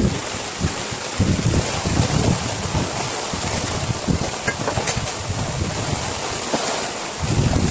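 Storm noise: a steady rush of heavy rain, with strong wind gusts buffeting the microphone, the heaviest about a second in and again near the end.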